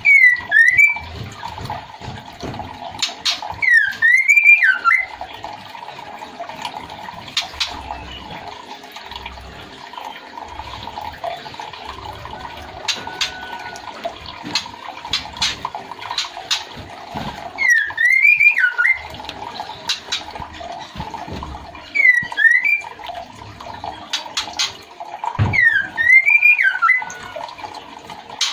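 Female white-rumped shama calling to the male: short whistled phrases that dip and then rise in pitch, given five times at intervals of a few seconds. A steady running-water sound and a few sharp clicks lie underneath.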